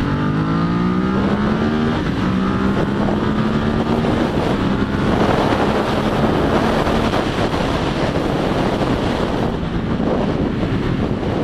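Motorcycle engine pulling away and rising in pitch, with a gear change about two seconds in. It then holds a steady pitch at cruise while wind noise on the microphone grows louder.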